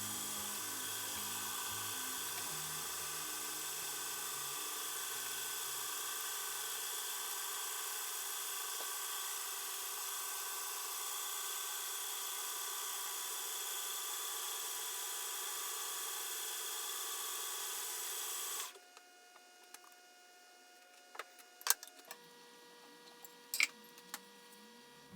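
Manual metal lathe running steadily while facing a bronze cam blank held on an expanding mandrel, with a steady machine tone over the cutting noise. It stops abruptly about three-quarters of the way through, followed by a few faint clicks.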